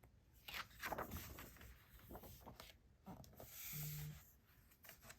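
Glossy photobook pages being turned and handled: soft paper rustles in the first couple of seconds, then a longer swish of a page a little before four seconds in.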